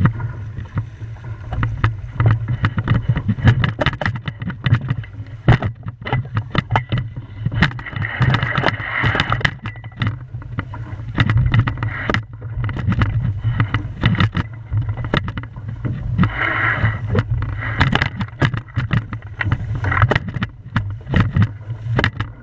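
Small sailing dinghy under way in choppy water: a steady low wind rumble on the microphone with water splashing and slapping against the hull, and many irregular sharp knocks and taps from the boat. Two stretches of louder spray hiss come about a third of the way in and again past two-thirds.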